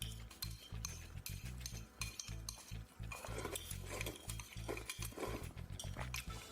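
Eating utensils clicking and clinking against bowls and dishes in a quick, irregular run of light clicks.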